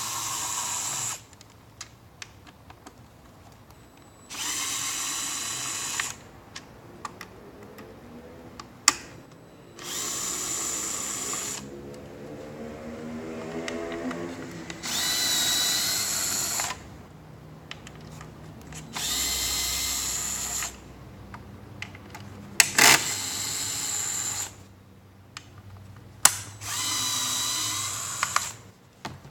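Gyro-sensing cordless electric screwdriver running in about seven short bursts of one to two seconds each, backing out the screws of the controller's cover. Small clicks of handling come between the runs.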